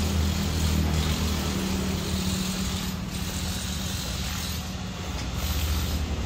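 Two-stroke engine of a backpack leaf blower idling steadily, an even low hum.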